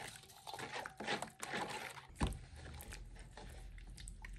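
Metal spoon stirring a watery seasoning-and-vinegar marinade in a large stainless-steel bowl, with light scrapes and clinks against the bowl. About two seconds in there is a dull thump, followed by a low steady rumble.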